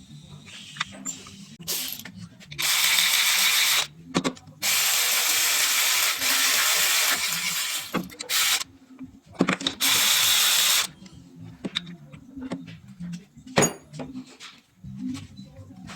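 A power tool runs in three bursts, about one second, four seconds and one second long, with scattered clicks and clanks of hand tools between them.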